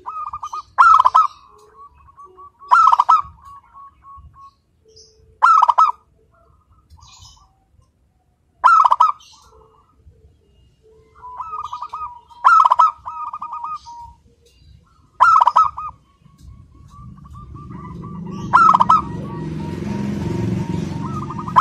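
Zebra dove (local perkutut) cooing: seven loud phrases of quick stuttering coos, each running into a softer rolling trill, about every three seconds. In the last few seconds a low rumbling noise swells up underneath.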